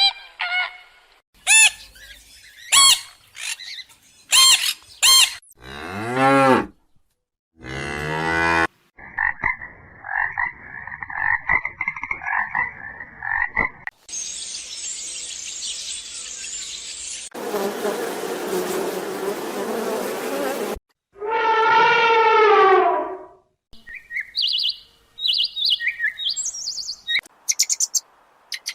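A series of different animal calls cut one after another. It opens with sharp high chirps and falling calls, then a buzzing trill and a stretch of steady hiss. A cow moos loudly about three quarters of the way through, and more short high chirps follow.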